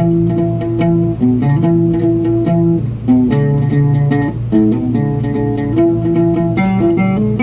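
Solo oud playing a picked melody in a minor pentatonic "blues" scale, several plucked notes a second, each with a sharp attack that rings on briefly.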